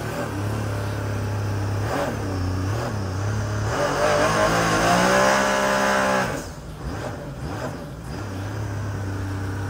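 Jet ski engine running under way, with water rushing past. About four seconds in, the throttle opens and the engine revs up with a rising pitch, the loudest part. About two seconds later it drops back, then settles into a steady run again.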